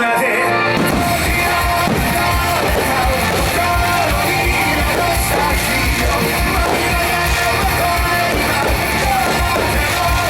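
Background music: a rock-style song with guitar and a steady beat.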